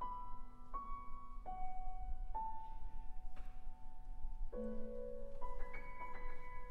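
Grand piano playing a slow line of single held notes, then a fuller chord about four and a half seconds in followed by quicker notes.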